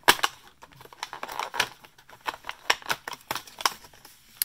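Fingers pressing and tearing open a perforated cardboard door on an advent calendar: a run of irregular sharp crackles and snaps, the loudest snap just at the start.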